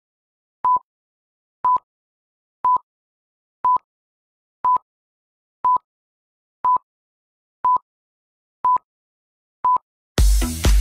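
Countdown timer beeps: ten short beeps, all at one pitch, one a second, counting down to the next exercise. Electronic dance music starts again near the end.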